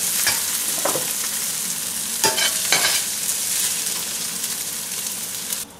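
Sliced okra sizzling in hot oil in a stainless steel pan while a spatula scrapes and scoops it out, after about seven minutes of frying. A few sharp scrapes stand out over the steady sizzle, which stops abruptly just before the end.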